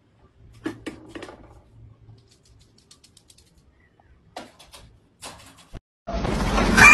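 Scattered light clicks and rattles from a small dog pawing at an electric fan and shifting about in a wire crate. About six seconds in, a loud noisy sound starts abruptly.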